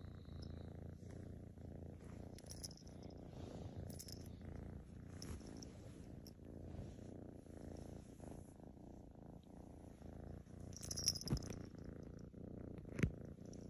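Half Maine Coon kitten purring steadily as she is petted, with short rustles of fur. Near the end come two brief knocks, about a second and a half apart.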